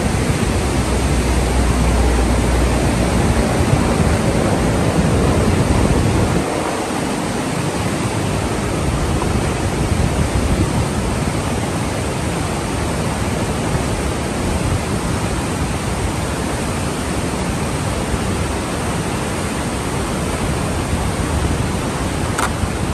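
Steady rushing of a glacial river below the bridge, with a heavier low rumble for the first six seconds or so.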